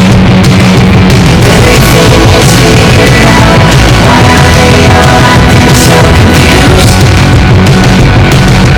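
Loud rock music with drums and a singing voice.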